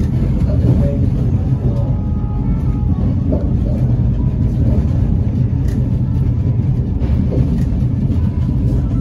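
Nankai Koyasan funicular car running on its steep incline: a steady low rumble.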